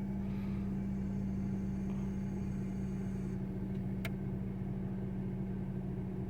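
Dodge Journey 2.4 running steadily with a constant low hum, with one light click about four seconds in. The snapping that the old broken HVAC actuator used to make on switch-on is absent, which points to the replacement actuator curing the fault.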